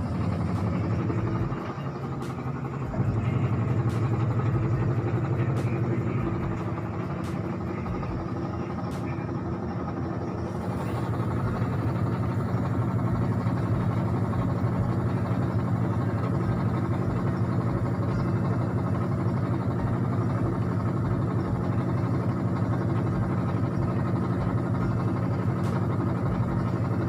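Singer 9 kg automatic washing machine running its wash cycle: a steady motor hum that dips and swells again a few times as the wash action changes.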